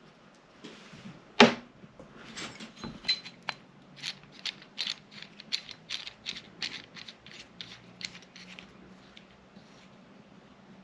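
A Glock slide being worked into a sight pusher tool: one sharp metal knock about a second and a half in, then a run of quick, light clicks and taps, several a second, that dies away near the end.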